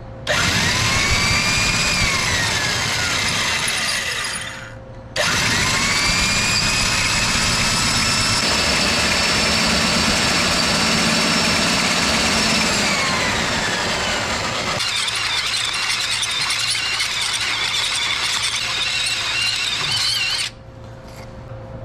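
Heavy corded electric drill boring into a seized bolt head on a tractor hydraulic valve, running twice with a whining motor that rises as it spins up and falls as it winds down. The second run is the longer, about ten seconds. A cordless drill then runs steadily for about six seconds and stops shortly before the end.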